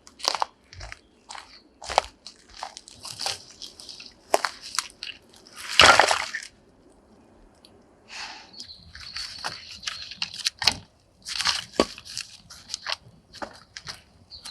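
Dry wood crackling and snapping in irregular sharp pops, with one louder crunch about six seconds in and a busier run of snaps near the end.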